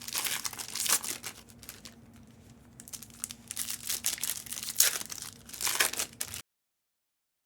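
Crinkling and tearing of plastic wrapping on trading-card boxes and packs being handled and opened, in bursts of crackles with a quieter stretch in the middle. The sound cuts off suddenly about six seconds in.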